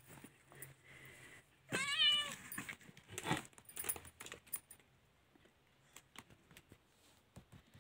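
A tabby kitten gives one short, wavering meow about two seconds in. Scattered light knocks and rustles follow.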